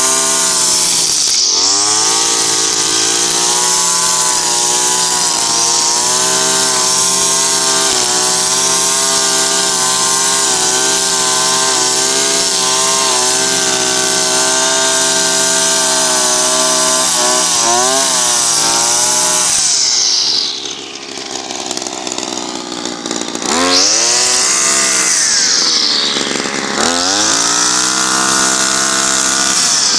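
Makita EM3400U two-stroke brushcutter running at high revs with its nylon-line head cutting grass. About two-thirds of the way through the throttle is let off to idle, then it revs back up, dips briefly once more and runs on high.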